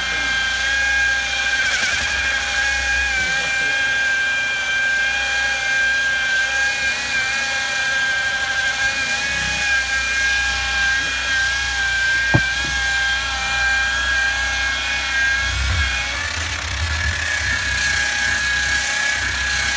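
Electric disc sander running steadily with a high whine as its sanding disc grinds down a blue-tinted coat on a fiberglass boat floor. A single sharp tick comes about twelve seconds in.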